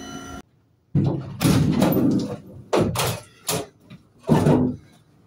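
A run of loud bangs and scrapes from the back of a van loaded with scrap metal: one longer scrape, then several short knocks.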